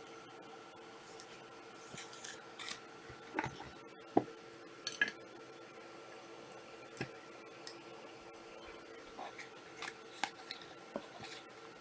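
Trading cards being handled on a table: scattered small clicks, taps and rustles, the sharpest a few seconds in, over a faint steady hum.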